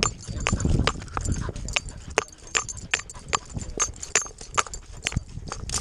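A running dog's strides through dry grass, heard through a GoPro strapped to the dog's chest: a rhythmic knocking of about three beats a second, with a low rumble in the first second.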